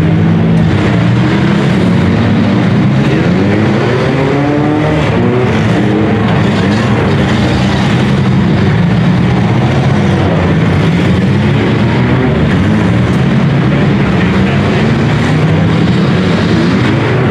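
Engines of several compact demolition-derby cars running and revving at once, their pitches rising and falling over each other.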